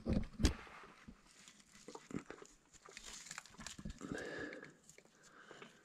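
Close knocks and scrapes of loose slate and debris being handled, strongest at the very start, then scattered small clicks and rustles, with a brief muffled murmur about four seconds in.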